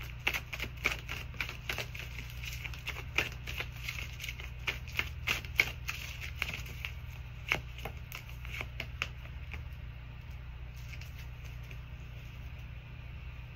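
A deck of tarot cards being shuffled by hand, cards clicking and flicking against each other several times a second, dying away about nine seconds in.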